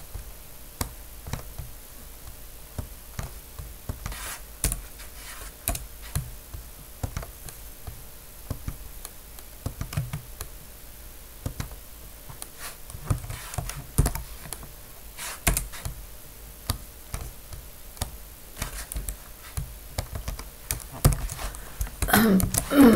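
Computer keyboard typing in irregular spurts: single keystrokes and short runs of clicks with pauses between them.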